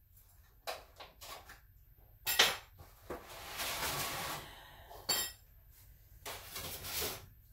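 Clinks and knocks of hard objects being picked up and set down, the loudest about two and a half and five seconds in, with stretches of rustling or scraping between.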